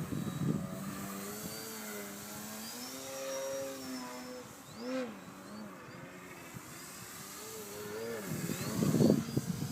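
Brushless electric motor and propeller of a 3D aerobatic model airplane, its pitch rising and falling with the throttle, with a quick swoop about five seconds in. Near the end a low, irregular buffeting on the microphone is the loudest sound.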